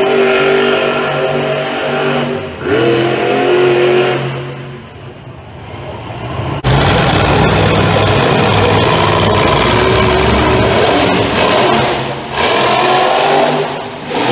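Monster truck engines revving hard. The engine note swells and rises, drops back for a couple of seconds, then turns suddenly much louder about halfway through as a truck goes to full throttle, with brief lifts off the throttle near the end.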